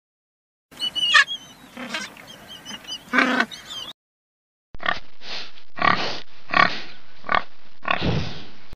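A warthog grunting in a quick series of short, rasping bursts, about six in four seconds. Before that, a few high chirps over a soft rustle.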